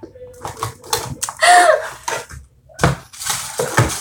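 Mascara tubes clicking and clattering against each other and the wooden box as they are packed in, with many quick knocks. About a second and a half in comes a brief loud squeak that rises and falls in pitch.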